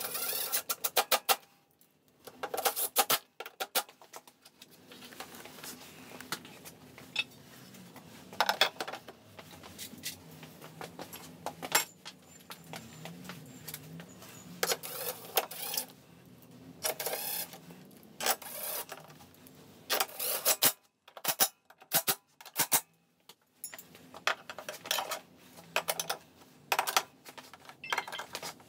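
Hard plastic body cowl panels of a Honda PCX 125 scooter being handled and pressed into place, with irregular sharp clicks and short bursts of clatter from the panels and a screwdriver.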